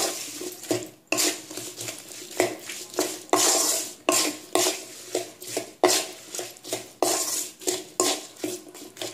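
A spatula stirring chopped green chillies and spices in a metal kadhai, scraping and knocking against the pan about twice a second.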